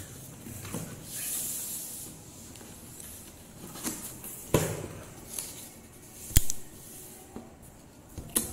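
Cardboard box being handled and opened: rustling and scraping of cardboard as the box is turned over and its flaps pulled open, with several sharp knocks, the loudest a little past six seconds in.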